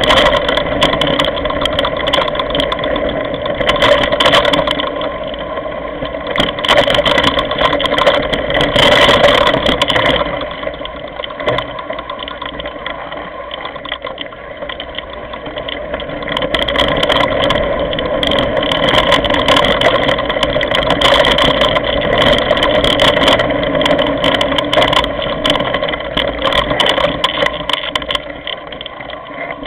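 Mountain bike ridden over a rough, stony gravel track, picked up by a camera mounted on the handlebar: a continuous noisy rattle with frequent knocks as the bike and mount jolt over the stones, a little quieter for a few seconds in the middle.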